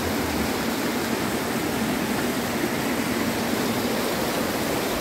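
A rocky mountain stream rushing over stones and small cascades: a steady, even water noise.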